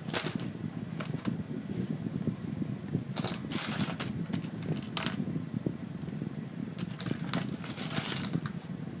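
Steady low background whir, with a few short rustles and clicks of an instruction sheet and plastic building-block parts being handled, a little past the middle and again near the end.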